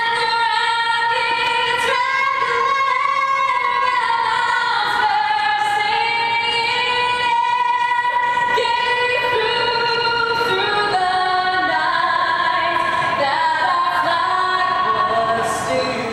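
A woman's voice singing a slow melody in long held notes.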